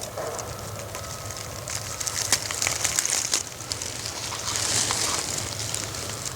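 Footsteps crunching through dry leaves and brush, a run of crackles and snaps that builds about two seconds in and eases off near the end, over a steady low rumble.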